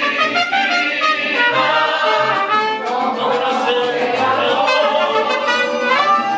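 Mariachi band playing live: trumpet and violins carry the melody over strummed guitars and a plucked guitarrón bass line.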